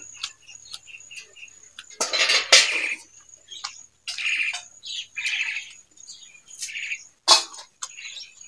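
Close-miked eating sounds: fingers squishing and mixing rice and curry on a steel plate, then wet chewing and lip-smacking in a few loud bursts. A faint high-pitched chirping runs behind throughout.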